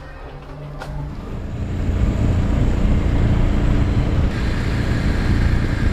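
Small motor scooter riding along a road: engine hum mixed with rushing road and wind noise, building up over the first two seconds and then running steadily loud.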